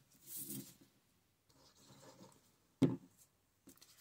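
Sheet-music paper and a cardboard circle handled and slid across a tabletop: soft paper rustling and rubbing, with one sharp tap a little before three seconds in.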